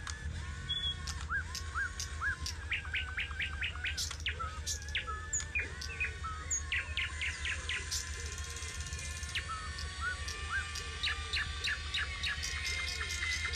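Many birds chirping and whistling in quick short calls, over a steady low hum.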